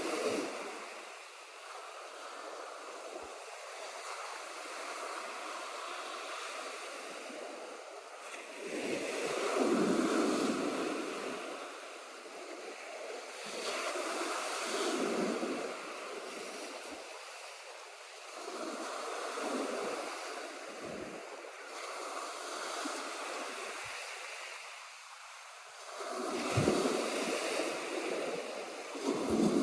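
Sea surf: waves rolling in and breaking on the shore, the hiss of the water swelling and falling back every few seconds, loudest near the end.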